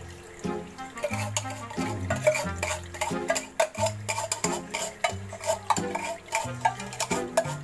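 Metal utensil scraping and clinking inside a tin can, emptying out the last of the condensed milk, in many short scrapes and taps. Background music with a stepping bass line plays under it.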